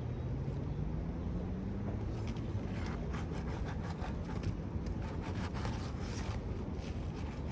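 Metal shingle-repair tool scraping and clicking under asphalt roof shingles as a nail is worked loose, in quick, irregular strokes starting about two seconds in. Underneath is a steady low rumble, with an engine note rising in pitch over the first couple of seconds.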